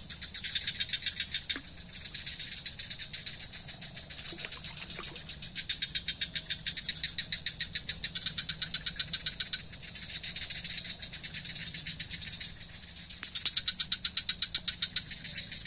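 Night chorus of insects and frogs: a steady high-pitched drone with repeated bursts of fast trilling and a short high chirp about once a second, the trilling loudest near the end.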